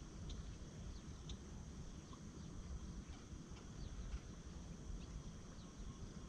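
Faint outdoor ambience: short high chirps of small animals come every half second to a second over a steady high-pitched hum and a low rumble.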